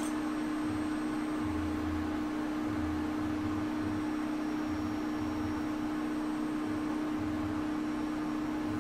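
A bench fan running steadily: an even hiss with a constant hum, and a faint low rumble that comes and goes.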